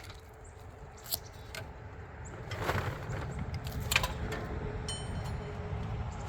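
A 1986 Wood-Mizer sawmill's engine being started cold after sitting for days in freezing weather: a low running rumble builds up about two and a half seconds in and carries on steadily, with a couple of sharp clicks.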